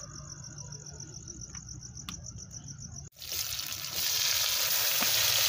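Crickets chirping in a fast, steady, high pulsing trill. About three seconds in, after a cut, chopped onion in hot oil in a wok sizzles, growing loud within a second and staying steady.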